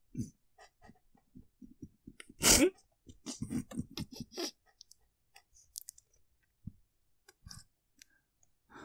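A close-miked narrator's mouth and breath noises between lines: one sharp, loud breath about two and a half seconds in, then a run of small mouth clicks and lip smacks, with sparse faint clicks after.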